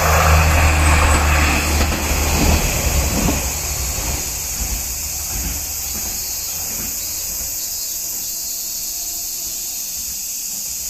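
KiHa 41 diesel railcar passing and moving away, its engine drone and running noise loud at first and dying away over about four seconds. A steady high hiss remains.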